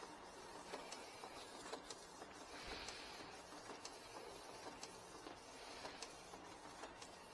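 Canon iX6770 inkjet printer working faintly through a print, with scattered light clicks and a short soft whir about three seconds in.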